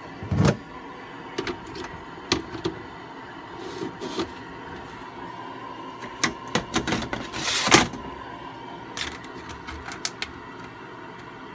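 Plastic food-dehydrator trays being stacked and the lid set on, a run of light plastic clicks and knocks. A heavier thump comes about half a second in, and a busier stretch of clatter comes around seven seconds in.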